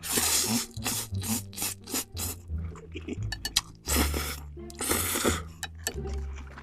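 Background music with a bass line, with several short hissing bursts and small clicks over it.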